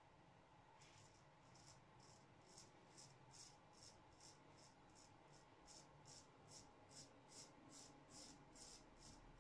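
Straight razor scraping through lathered beard stubble on the cheek in short, quick strokes, about two to three a second, starting about a second in. Faint.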